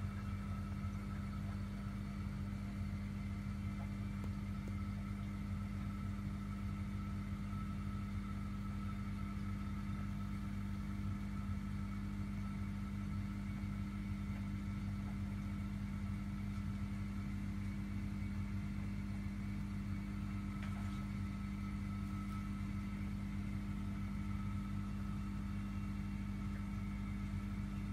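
Steady machine hum: a low even drone with a faint higher whine above it, unchanging throughout.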